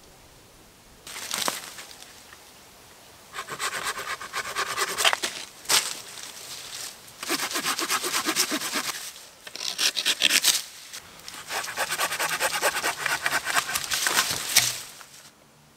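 Hand saw cutting through a fallen carob branch: several bouts of quick back-and-forth strokes with short pauses between, stopping shortly before the end.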